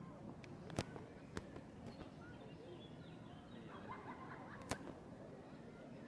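Faint outdoor ambience with distant voices and short bird chirps, broken by two sharp clicks, one about a second in and one near five seconds in.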